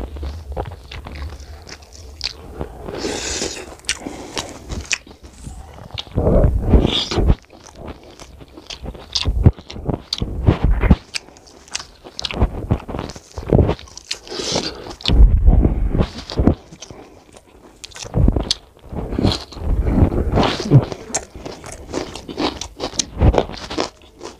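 Chewing and wet mouth sounds of mutton curry and rice being eaten by hand, with fingers mixing rice and gravy on a steel plate, in irregular bursts.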